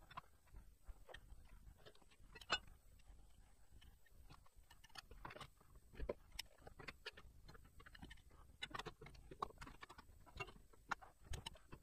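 Faint, scattered clicks and clinks of a steel bumper-support bracket and clamp being handled and fitted against a trailer's rear bumper, with one sharper knock about two and a half seconds in.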